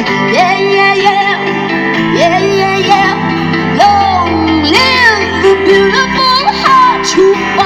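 Live music: a woman's voice singing wordless, sliding runs that bend up and down in pitch over sustained instrumental chords.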